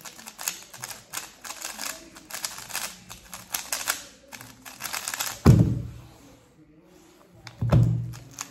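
Fast, dense clicking and clacking of a 3x3 speedcube's layers being turned during a speed solve. Two heavier low thuds break in, the louder about five and a half seconds in and another about two seconds later, with a short lull between them.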